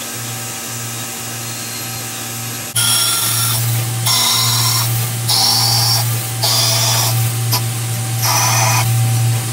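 CNC lathe turning a metal bar on a G71 roughing cycle. The spindle hums steadily, and from about three seconds in, bursts of high-pitched cutting noise come one after another, each about a second long, as the tool makes its roughing passes.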